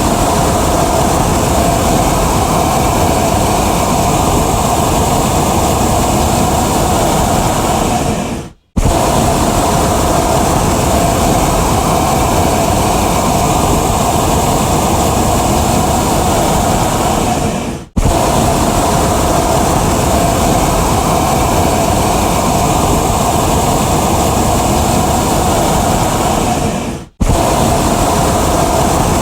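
Hot air balloon propane burner firing in long blasts of about nine seconds each: a loud, steady rushing of flame. Each blast tapers off, cuts out for a moment and starts again sharply, three times.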